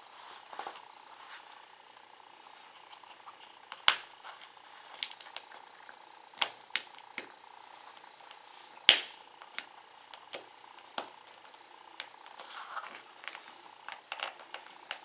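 Plastic guitar pick prying around the seam of a SanDisk Sansa Clip+ MP3 player's snap-fit plastic case: irregular sharp plastic clicks and snaps as the case clips pop and catch, the two loudest about four and nine seconds in.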